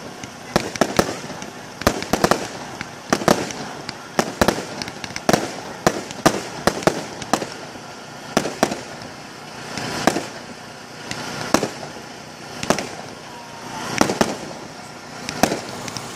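Fireworks display: aerial shells bursting in an irregular series of sharp bangs, roughly two a second, some in quick pairs.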